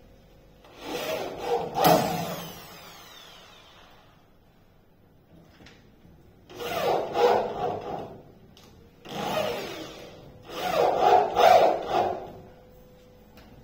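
A hand tool worked against wood in four bursts of strokes, each a second or two long, with a sharp click about two seconds in.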